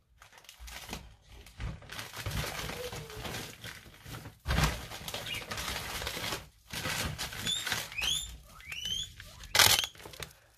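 Plastic packaging and bags rustling and crinkling as craft items are handled, with a few short rising squeaks near the end and a sharp loud crackle just before it ends.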